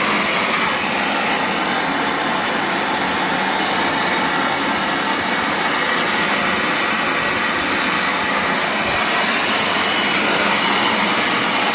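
Hose-fed gas brazing torch burning steadily with a constant hiss as its flame heats a copper pipe joint.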